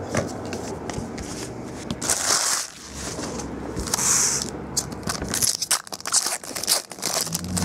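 Trading cards being shuffled, then a foil card pack torn open and crinkled as the cards are pulled out, with two louder tearing hisses and a run of sharp crackles near the end.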